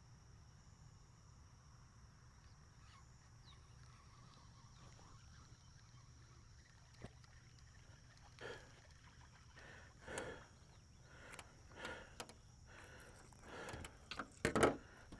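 Steady outdoor insect chorus of crickets. About halfway through, a string of short irregular knocks and rustles starts, loudest near the end.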